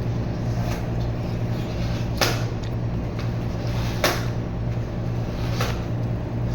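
Three sharp taps or knocks, about two seconds apart, over a steady low hum.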